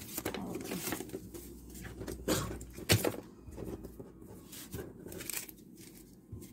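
Photocards in plastic sleeves being handled and set down on a desk: irregular rustling and light taps, with two sharper clicks a little past the middle.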